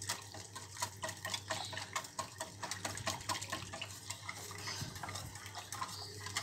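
Metal whisk stirring a thin pineapple juice and cornflour mixture in a stainless steel saucepan, clicking against the pan about three or four times a second, over a low steady hum.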